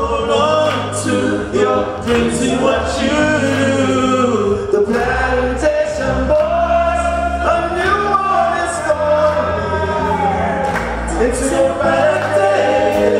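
Several men singing together into microphones over backing music with steady bass notes.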